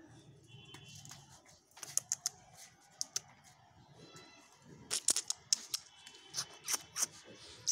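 Irregular sharp clicks and taps, sparse at first and coming thicker and louder from about five seconds in.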